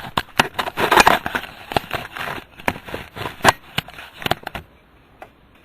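Handling noise as a vertical speed indicator is fitted into an instrument panel: a rapid, irregular run of clicks and knocks with some crinkling, which dies away about four and a half seconds in.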